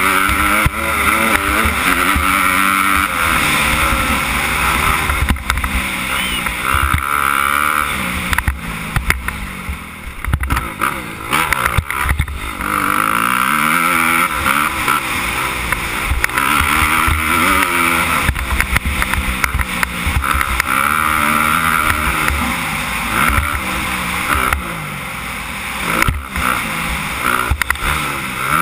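Suzuki 250 motocross bike's engine revving hard on a dirt track, its pitch climbing and dropping over and over as the rider accelerates, shifts and backs off for turns.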